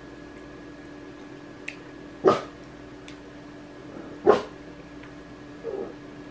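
A dog giving two short, sharp barks about two seconds apart.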